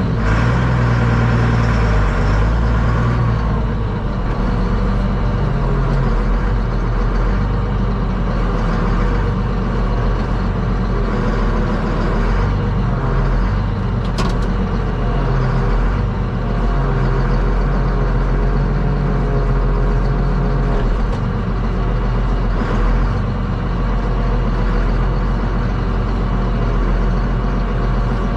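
Farm tractor engine running steadily, with one sharp click about fourteen seconds in.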